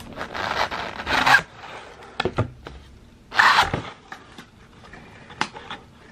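Cardboard shipping box being torn open: a ripping, scraping tear about a second and a half long at the start, a shorter louder rip about halfway through, and a few light knocks of the cardboard between and near the end.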